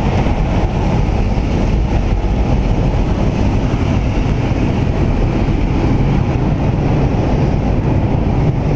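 Loud, steady rush of wind and turboprop engine noise through the open jump door of a Cessna Caravan in flight.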